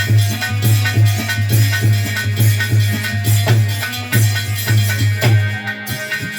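Instrumental folk music: a steady drum beat with rattling, jingling percussion. The low drum pulses stop about five and a half seconds in.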